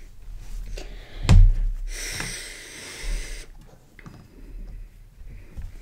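Hands handling plastic Lego pieces on a tabletop: a sharp knock about a second in, a rustle for a second or so, and a few light clicks.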